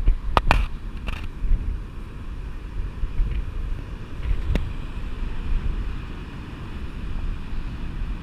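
Strong wind buffeting the microphone in low rumbling gusts, strongest at the start and easing after about a second. A few sharp clicks come about half a second in and again at about four and a half seconds.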